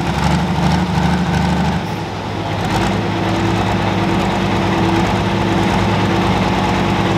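John Deere pro stock pulling tractor's engine running at low, steady revs while hooked to the sled, the tractor creeping forward, with a shift in engine tone about two seconds in.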